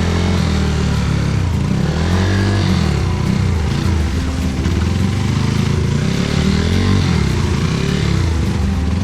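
Trail motorcycle engine revving hard, the revs rising and falling over and over.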